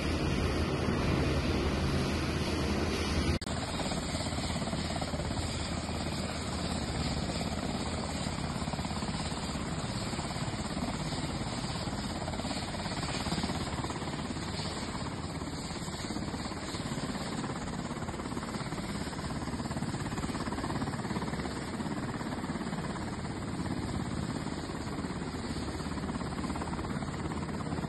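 Helicopter turbine and rotor running on the ground, a dense noise with a fast, steady pulsing chop. About three seconds in, the sound changes abruptly to a rougher, thinner version of the same rotor noise.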